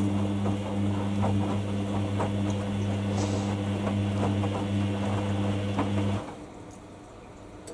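Hoover WDYNS654D washer dryer running mid-cycle: a steady low mechanical hum with light irregular clicks and rattles, which cuts off suddenly about six seconds in.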